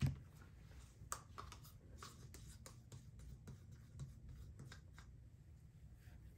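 Faint handling noises of a paper paint cup and gloved hands on a paper-covered table: a short thump at the start, a sharp click about a second in, then light scattered clicks and rustles over a low hum.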